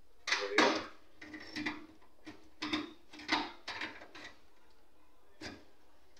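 A hard disk drive being slid and pushed into the metal drive cage of a desktop computer case: a run of clacks and scraping knocks for about four seconds, then one more knock.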